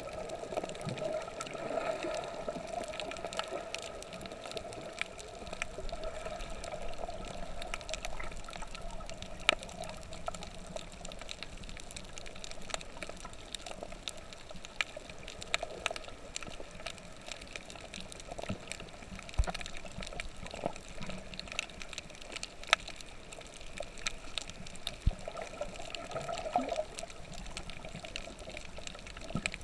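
Water sloshing and trickling, with many scattered sharp clicks and a steady humming tone underneath.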